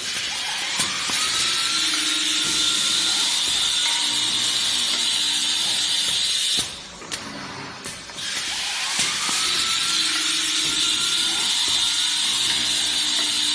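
Automatic glass lid drilling machine running two work cycles. Each cycle is a loud steady hiss of about six and a half seconds that opens with a faint rising whine, and a short lull splits the two about six and a half seconds in.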